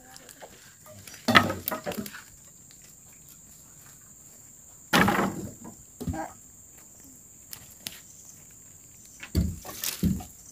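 Wooden boards and dead branches knocking and clattering as they are pulled from a pile of cleared debris and dropped, in a few separate bursts: about a second and a half in, about five seconds in, and again near the end. A faint steady high insect buzz runs underneath.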